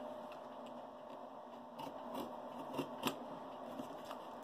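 Scalpel blade cutting and scraping through the tape and cardboard of a tightly wrapped parcel: a few short scrapes and light clicks, the sharpest about three seconds in.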